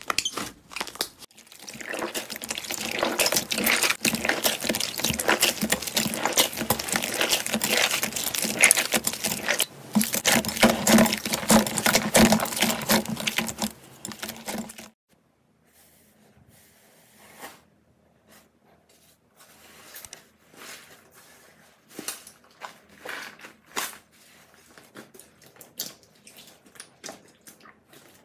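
Slime being squeezed and pressed by hand, giving dense crackling and crunching for about the first half. It cuts off abruptly to a quieter stretch of scattered small clicks and crackles.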